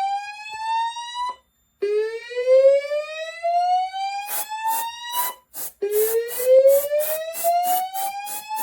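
Fire alarm voice-evacuation speakers sounding a slow whoop tone: repeated rising sweeps of about three and a half seconds each, with short gaps, the tone that comes before the spoken evacuation message. About halfway through, a rapid pulsing alarm joins in at about three pulses a second.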